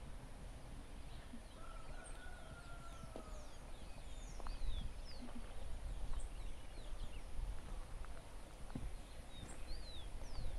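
Several birds chirping in short, quick notes that fall in pitch, scattered throughout, with one longer, faint falling whistle about two seconds in. A low, steady rumble lies underneath.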